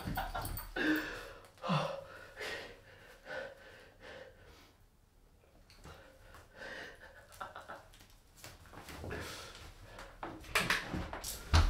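A man breathing with short gasps and sniffs in a small tiled room, quiet for a stretch in the middle. A thump comes near the end.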